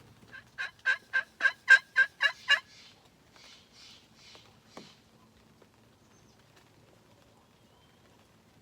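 Turkey yelping: a run of about eight loud yelps, around four a second, followed by a few softer, raspier notes.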